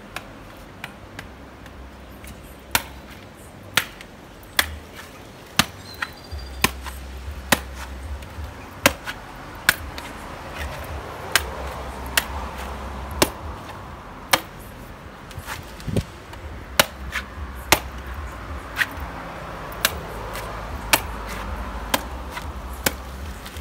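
Machete (cutlass) chopping into the husk of a dry coconut held in the hand, stripping the husk off. The sharp chops come about one every half second to a second.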